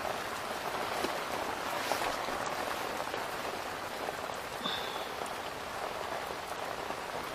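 Steady rain falling on a bamboo fishing hut, a continuous even hiss with a few faint drip ticks.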